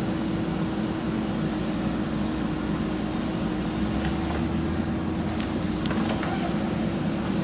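JCB backhoe loader's diesel engine running at a steady speed.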